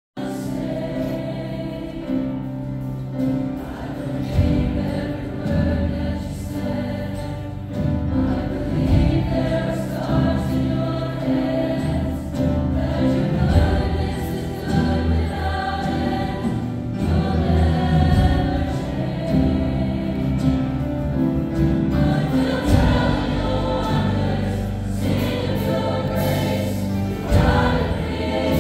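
A gospel choir singing worship music with instrumental accompaniment, a steady low bass under it.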